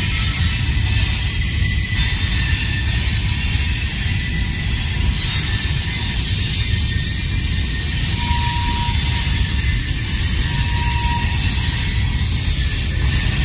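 CSX freight train's open gondola cars rolling past, a steady rumble of wheels on rail with a high-pitched wheel squeal running over it.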